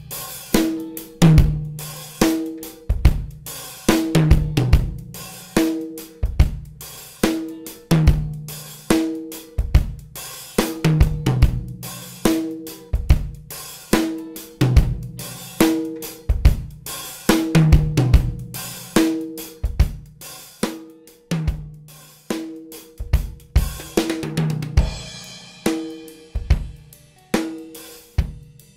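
A recorded acoustic drum kit plays a steady groove of kick, snare, hi-hat and cymbals. It runs through the OmniTec-67A vintage tube preamp plugin, which adds tube saturation and harmonics.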